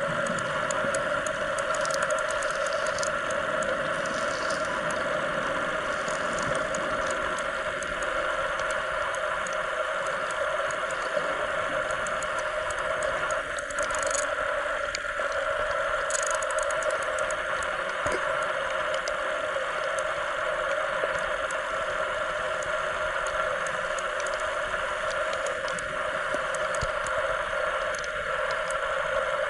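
Underwater ambience picked up by a camera in the sea: a steady hum with faint scattered ticks and crackling.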